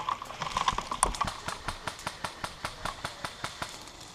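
Airsoft gun firing a steady string of sharp shots, about five or six a second, that thins out and stops near the end.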